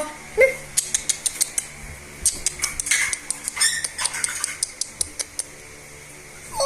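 A quick, irregular run of light clicks and clatter from small hard objects being knocked and handled, easing off after about five seconds.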